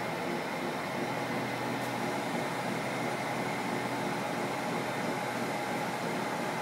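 Technogym Run XT treadmill running, its motor and belt giving a steady whir with faint, even whining tones.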